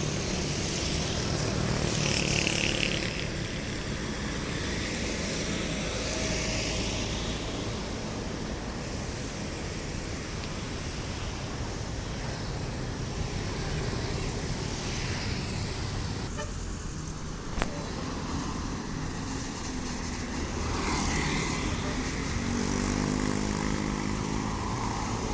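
Road traffic with large vehicles, buses among them, driving past, and a few horn toots over the steady rumble and tyre noise.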